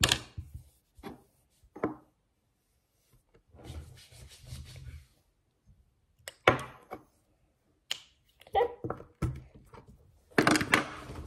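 Handling noises from a small plastic bottle being worked in the hands: scattered clicks and knocks, with a short stretch of rubbing, a sharp knock about halfway through and a louder rustle near the end.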